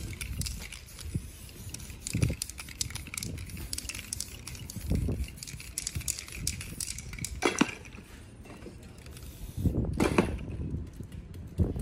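Aerosol spray-paint cans hissing in many short bursts over the canvas. Later come a few dull thumps, and the clink of cans in a crate near the end.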